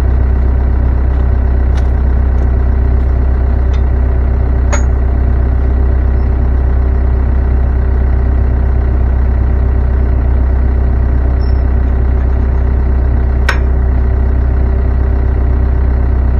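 An engine running steadily at idle, a constant loud low drone, with a couple of light metallic clinks about 5 and 13 seconds in.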